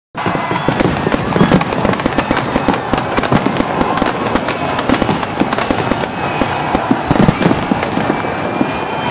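Fireworks display going off in a dense, continuous crackle of rapid sharp bangs and pops.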